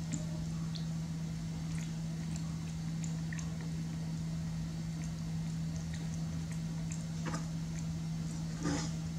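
Baby macaque chewing a soft sweet snack, with faint scattered wet smacking clicks over a steady low electrical hum, and a short rustle near the end.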